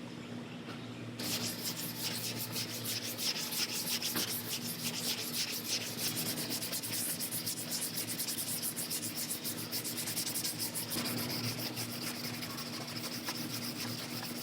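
Sanding body filler on a car's quarter panel: rapid, even strokes of abrasive rubbing over the filled area, starting about a second in.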